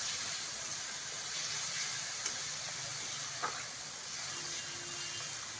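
Ground mustard, green chilli and garlic paste frying in hot oil in a kadhai, a steady sizzle as it is stirred with a metal spatula. Two light clicks of the spatula on the pan about a second apart.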